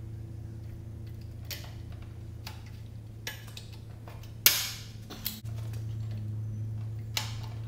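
Blind rivets being pulled through aluminium engine baffle seal, each setting with a sharp snap as the mandrel breaks; the loudest comes about four and a half seconds in and trails off in a short hiss. A steady low hum runs underneath and gets louder about halfway through.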